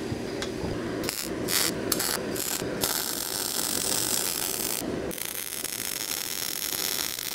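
Wire-feed (MIG) welding arc crackling on steel: a few short tack bursts, then two longer welds of about two seconds each with a brief break between them.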